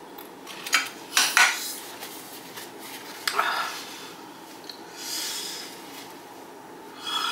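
Glass bowls clinking against a plate a few times, then two short breathy sniffs into a paper tissue held over the nose and mouth.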